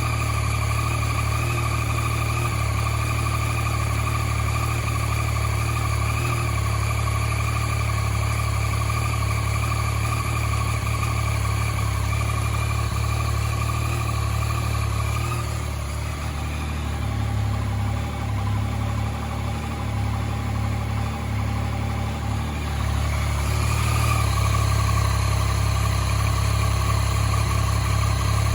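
A 2014 Yamaha MT-09's inline three-cylinder engine running steadily at idle, recorded for the clicking noise the owner noticed in it. The sound softens and changes a little past halfway, then comes back slightly louder near the end.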